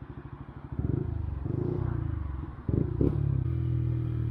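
Yamaha MT-125's 125 cc single-cylinder engine under way, pulsing evenly at low revs, then pulling harder about a second in. There is a short break in the sound just past the middle, then it settles into a steady drone.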